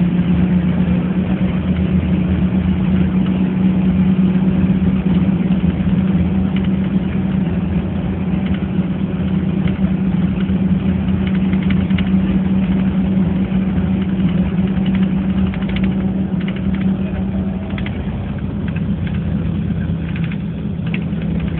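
Engine and road noise of a moving vehicle heard from inside its cabin while driving through a road tunnel: a steady low drone with a strong hum, easing slightly near the end as the vehicle comes out into the open.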